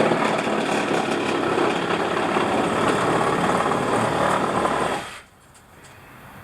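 Power saw running as it cuts, for about five seconds, then cutting off abruptly.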